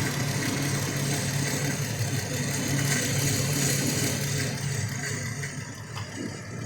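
2016 Dodge Grand Caravan's 3.6-litre Pentastar V6 idling steadily with its accessory belt drive running, a light whir that the owner puts down to the belt tensioner and a pulley. It grows quieter about five seconds in.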